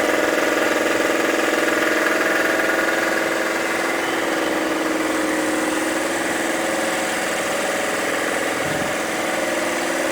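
A motor running steadily with an even hum, dipping briefly near the end.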